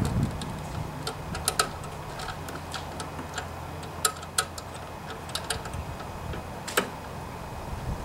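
Small, irregular metal clicks and ticks as a replacement control cable's end fitting is handled and hooked onto the bracket tab of a Craftsman push mower, with one sharper click near the end, over a faint low steady hum.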